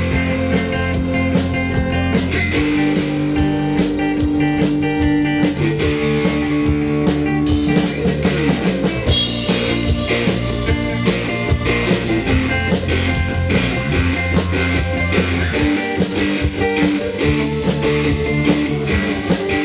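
Live band playing an instrumental song intro: electric guitar over a drum kit and keyboard, held guitar notes and a steady drum beat.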